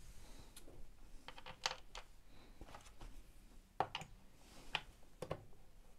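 Faint scattered clicks and scrapes of a screwdriver driving screws into the plastic housing of a Makita DX01 dust extraction unit.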